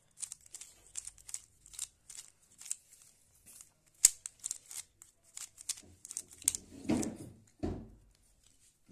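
3x3 Rubik's cube being turned rapidly by hand while it is solved: quick irregular plastic clicks and clacks of the layers, several a second, with one sharper snap about four seconds in and a couple of duller, lower handling sounds near the end.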